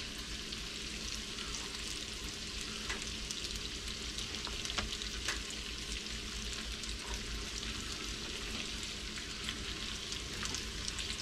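Smoked sausage, onions and green peppers sizzling steadily in olive oil in a pot on the stove, with a few faint ticks scattered through.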